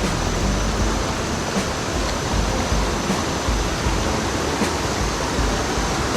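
Waterfall's steady rush of falling water, with irregular low rumbles underneath.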